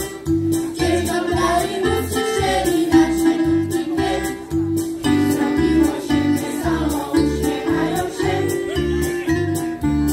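A folk singing ensemble performing a song with electronic keyboard accompaniment: a steady bass beat and sustained chords under the group's singing voices.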